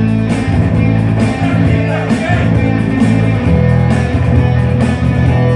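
Instrumental passage of a rock song: guitar over held low bass notes, with no singing.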